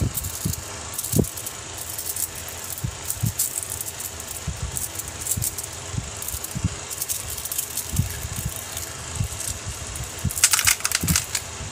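Small coloured magnetic metal balls clicking and rattling together as a hand squeezes and kneads them, with soft handling thumps. A denser clatter of clicks comes near the end.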